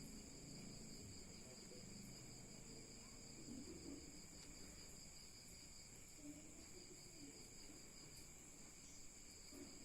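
Near silence, with a faint steady high-pitched insect drone.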